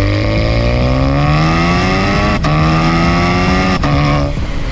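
Stage 3-tuned Škoda Octavia vRS 245's turbocharged 2.0-litre four-cylinder accelerating hard at the exhaust tip, revs climbing steadily. Two quick DSG upshifts, about two and a half seconds in and about four seconds in, each break the note and drop the revs before they climb again.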